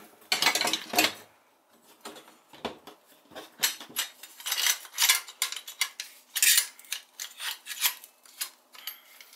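Metal quad rail handguard being slid over a Remington 870 shotgun's barrel and magazine tube: irregular metal clinks, knocks and scrapes, with short quiet gaps between them.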